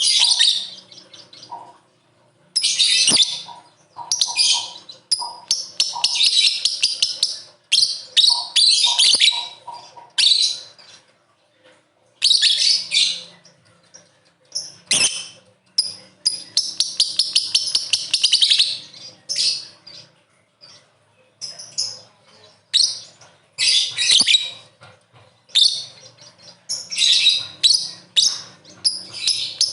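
Lovebird chattering in long, rapid, high-pitched bursts (the 'ngekek' song), a burst every few seconds with short pauses between.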